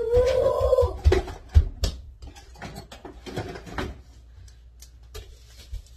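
A woman's hum stops about a second in, followed by irregular small clicks, taps and rasping from salt and pepper being put onto a bowl of cut raw potato fries, with a few dull knocks on the counter.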